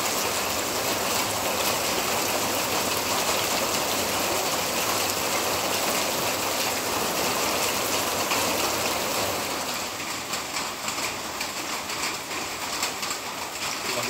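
Monsoon rain falling steadily as an even hiss. About ten seconds in it eases a little, and separate drops hitting a surface stand out.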